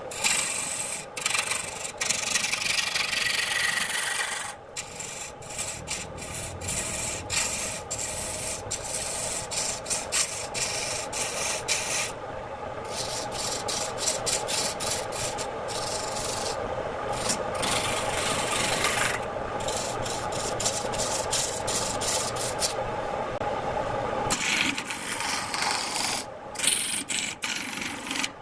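A steel turning tool cutting into a spinning redwood blank on an electric wood lathe: a continuous rough scraping hiss of shavings being peeled off. It breaks off briefly several times as the tool eases off the wood, over a steady hum from the lathe.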